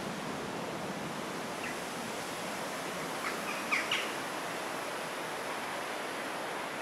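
Steady outdoor background hiss, with a few short, high chirps a little past halfway, the loudest two close together.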